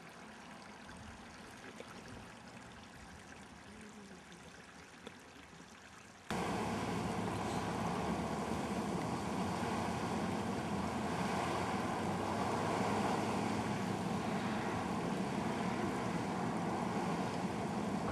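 Faint trickling of water on the geyser's terraces. About six seconds in, a sudden cut to a much louder, steady rushing of Great Fountain Geyser boiling up and surging at the start of its eruption.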